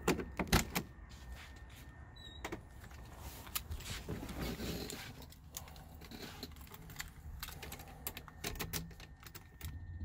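Door of a 1968 VW Beetle clicking open at the handle, with sharp latch clicks and a clunk in the first second, then scattered clicks, knocks and rustling as someone climbs into the seat. Near the end, keys jangle as a key is brought to the ignition switch.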